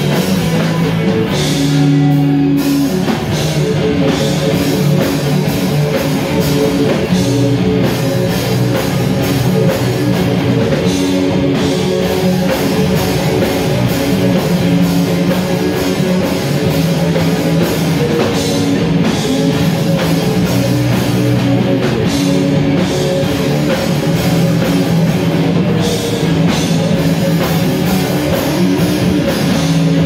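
Live rock band playing an instrumental passage: two electric guitars, electric bass and a drum kit, loud and steady throughout.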